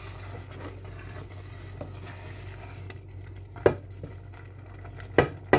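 Wooden spoon stirring a thick simmering cassava-leaf sauce in a stainless steel saucepan, a soft wet scraping, with three sharp knocks in the second half.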